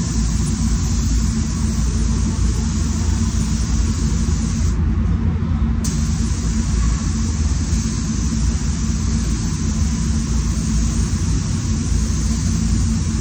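Paint spray booth's air-handling fans running: a steady low rumble under a constant rush of air, with the upper hiss dipping briefly about five seconds in.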